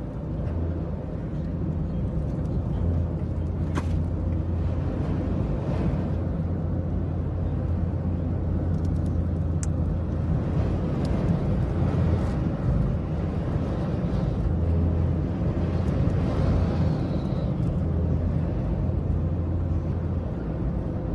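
Steady low drone of a car driving at highway speed, engine and road noise heard from inside the cabin.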